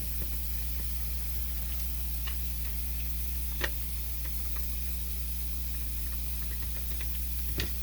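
Steady electrical hum and hiss with a few scattered light clicks, the sharpest about three and a half seconds in, as a T15 Torx driver backs two screws out of the top of a lighting control module.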